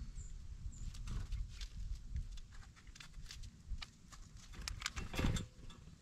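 Irregular sharp clicks and taps of northern cardinals and small birds pecking seed from a metal tub on snow, with a denser burst of taps about five seconds in, over a steady low rumble.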